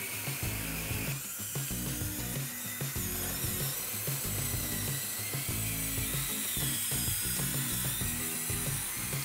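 Background music with a stepping bass line throughout. Above it runs a high whine that rises and falls in pitch, fitting the small electric drive motor and gearbox of a radio-controlled model tractor.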